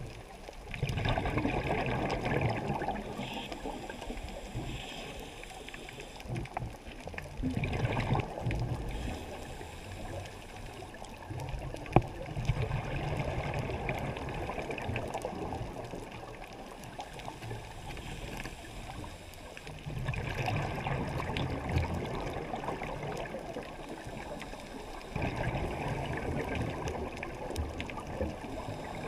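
Scuba regulator breathing heard underwater: exhaled bubbles gurgling in spells of a few seconds, with quieter stretches between breaths. There is one sharp click about twelve seconds in.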